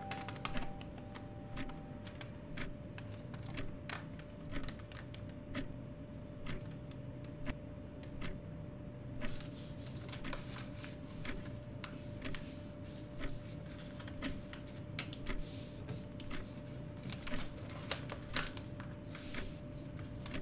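Irregular light clicks and taps, busier from about nine seconds in, over a steady room hum with a faint held tone.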